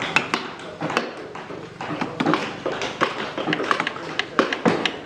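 Mallets tapping carving chisels into wood, several strokes a second in an irregular, overlapping patter, as of more than one carver working at once.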